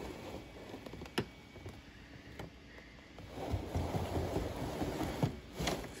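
Faint rustling and handling noise, picking up a little past the halfway point, with a few light clicks.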